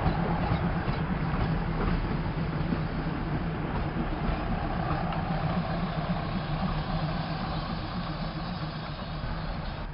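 State Railway of Thailand diesel railcar running past at low speed, its engine giving a steady low hum that fades slowly as the train moves away.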